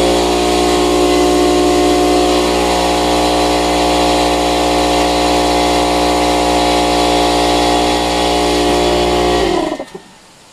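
Electric piston air compressor (a ZV-0.25/0.12) running steadily under load. It cuts off about nine and a half seconds in, the pitch falling briefly as the motor runs down.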